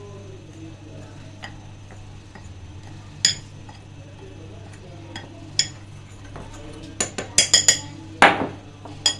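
A metal spoon mixing baking powder into flour in a glass bowl, with scattered sharp clinks of spoon against glass, several in quick succession near the end, over a low steady hum.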